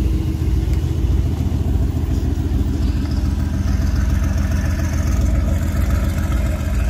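Mercedes-AMG GT R's twin-turbo V8 running at low revs as the car creeps along, a steady, deep exhaust rumble with no big rev changes.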